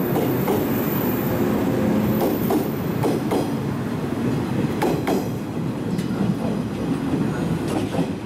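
JR West 113 series electric train running past along the platform and pulling away, with a steady running rumble and wheels clacking irregularly over rail joints.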